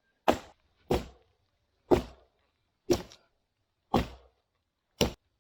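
Six sharp blows of a tool striking wood, about one a second, as a log is worked for a shelter post.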